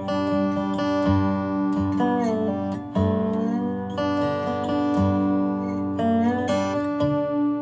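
Square-neck resonator guitar played lap-style with a steel bar and finger picks: picked notes over a sustained low drone, several of them sliding up in pitch.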